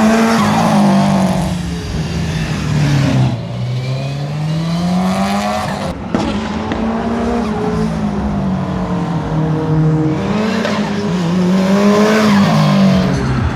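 Subaru Impreza GT's flat-four engine driven hard, its revs climbing and dropping again and again, with a brief break about six seconds in.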